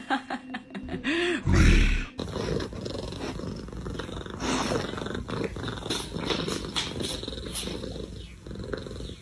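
Domestic cat purring loudly close up, a steady rough, fast-pulsing purr. A brief loud burst comes about a second and a half in.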